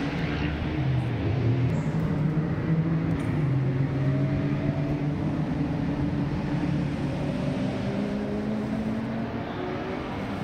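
Historic racing car engines running on the circuit, their pitch rising and falling as the cars change speed.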